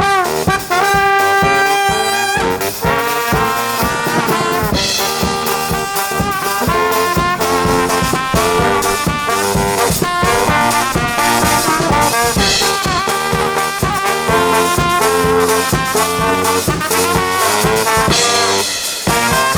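Live brass band playing an upbeat tune: trombones and trumpets carry held and moving melody lines over a steady drum beat.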